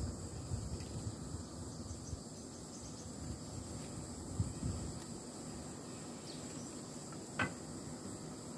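Steady high-pitched insect chirring, with uneven low rumble underneath and one short sharp click about seven seconds in.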